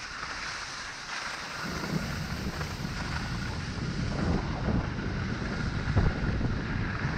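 Wind buffeting a GoPro action camera's microphone during a fast run down a groomed ski slope, mixed with the steady hiss and scrape of edges sliding on packed snow. A single brief knock about six seconds in.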